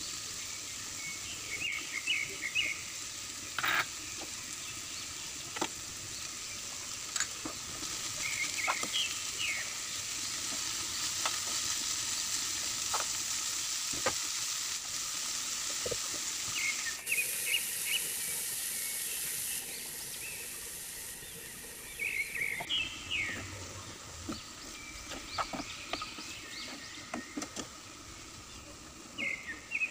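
Shredded cabbage and carrot sizzling steadily in hot oil in a frying pan, with a spatula clicking and scraping against the pan every second or two as the vegetables are stir-fried.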